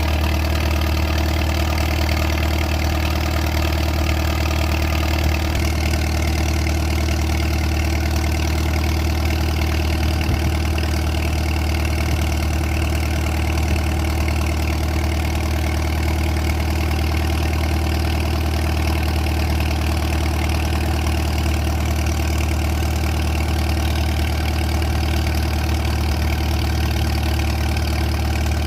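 1945 Farmall M tractor's four-cylinder engine idling steadily, a constant low hum with no change in speed.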